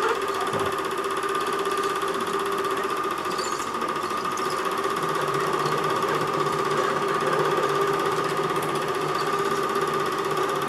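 Cabin 8mm sound projector running, its motor and film mechanism giving a steady, even mechanical hum with a couple of held tones; a lower hum joins about halfway through.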